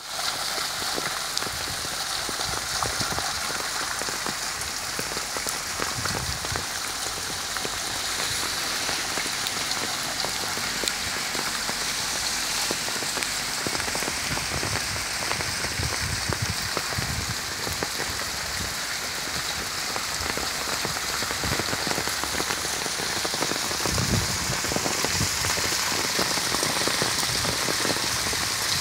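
Rainwater from a roof gushing steadily out of a PVC pipe outlet and splashing onto stones in a shallow pool of water.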